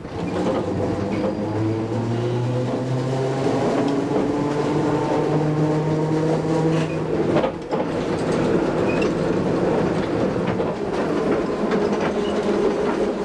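Electric tram running along the street, its motor whine climbing in pitch as it gathers speed. The sound breaks off briefly about seven and a half seconds in, then runs on at a steady pitch.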